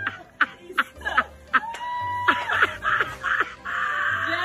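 A girl laughing in quick, short, repeated bursts.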